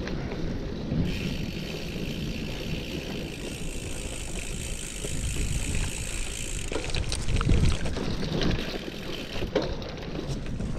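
Cube Nuroad Pro FE gravel bike rolling over a sandy dirt track: tyre noise under a steady rumble of wind on the microphone, with a brighter hiss in the first half and scattered rattles and knocks over bumps in the second half.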